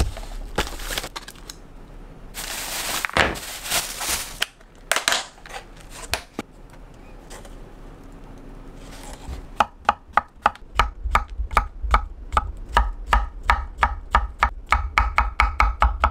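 Chef's knife chopping mushrooms on an end-grain wooden cutting board: rapid, even strokes about four a second, starting about halfway through. Before that, a plastic bag rustles and is handled.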